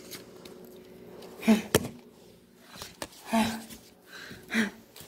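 A person's voice in three short vocal sounds, with a sharp click just after the first, over a faint steady hum.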